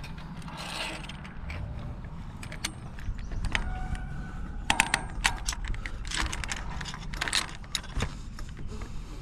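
Steel bolts and nuts being fitted by hand into an aluminium antenna mounting plate on the mast: scattered sharp metallic clicks and clinks, with a brief ring about four seconds in, over a low wind rumble.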